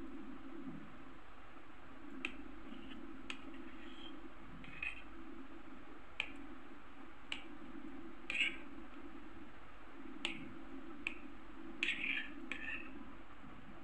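Kitchen knife cutting paneer into cubes on a plate, the blade tapping the plate in a dozen or so short sharp clicks at irregular intervals, over a steady low hum.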